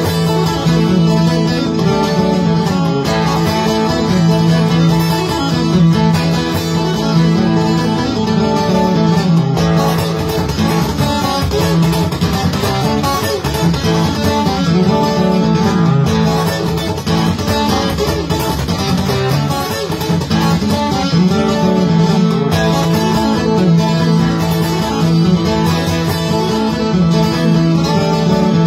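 Cutaway steel-string acoustic guitar played fingerstyle: fast, dense runs of plucked notes over a steady bass line, continuous throughout.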